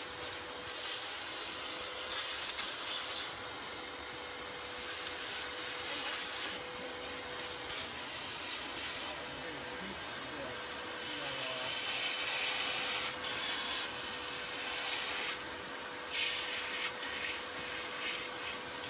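Wet/dry shop vacuum running steadily with a constant high whine while it draws up paint dust and chips, and a hand paint scraper rasps against the wooden window trim in several spells.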